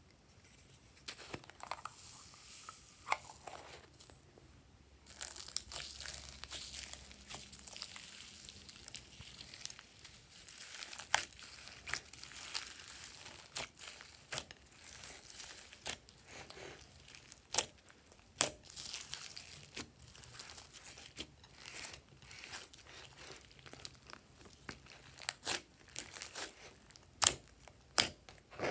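Glossy slime loaded with foam beads and sequins being squeezed and folded by hand: continuous crackling and crinkling with many sharp sticky pops and clicks. The first few seconds are fainter, as the foam beads are tipped in, before the kneading starts.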